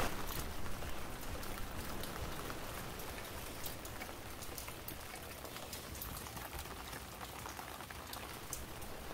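Steady rain falling, with many single drops ticking sharply on nearby surfaces.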